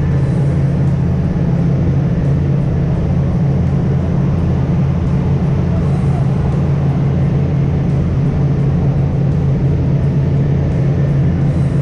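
Boat engine running steadily, a loud, even low drone that does not change in pitch.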